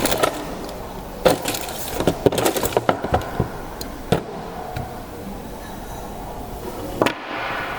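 Plastic LEGO parts clicking and knocking as they are handled, with a cluster of sharp clicks in the first few seconds and a single knock near the end.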